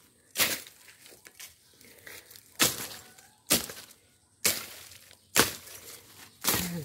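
A bolo knife hacking through weeds and brush: six sharp cutting strokes, most about a second apart.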